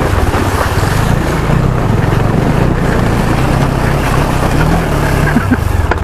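Motorcycle engine running steadily as the bike rides through a shallow stream, the front wheel splashing and churning water, with wind on the microphone.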